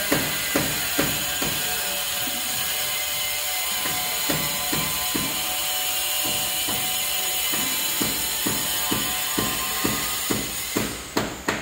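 Rhythmic sharp knocks, about two a second, pausing for a couple of seconds about two seconds in, over a steady hiss.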